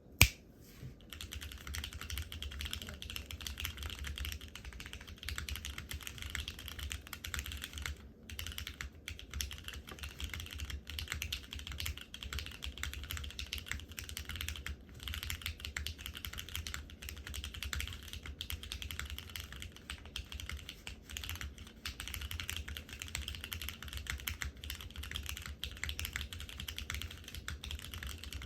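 Typing on a Geonworks F1-8X mechanical keyboard with lubed, spring-swapped vintage Cherry MX Black linear switches and GMK keycaps: a fast, continuous run of keystrokes and key returns. The owner finds it a bit muted rather than clacky. It opens with a single sharp click.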